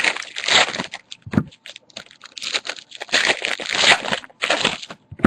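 Trading-card pack wrappers crinkling and tearing as packs are opened and handled, in irregular rustling bursts.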